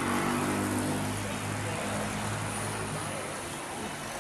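An engine's steady hum, fading about three seconds in, over outdoor street noise.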